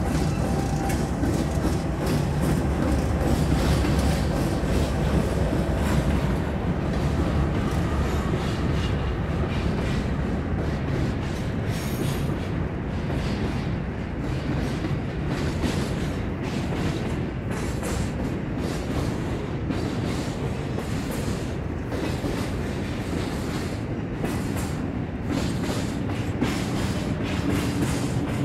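Norfolk Southern freight train passing close by: a diesel locomotive's engine is loud for the first few seconds, then double-stack container well cars roll past with steady wheel and rail noise and clickety-clack.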